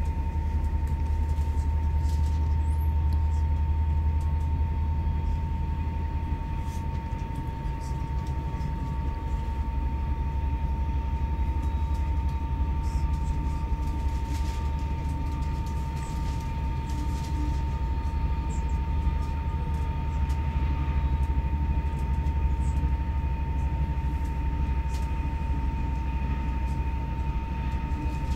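Steady low rumble of a moving passenger train heard from inside the carriage, wheels running on the rails, with a constant thin high tone over it and a few faint clicks.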